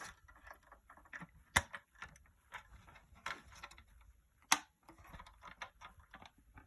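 Honeywell BG-12L fire alarm pull station being closed up and handled: sharp plastic-and-metal clicks, the loudest about one and a half and four and a half seconds in, with softer taps and rattles between.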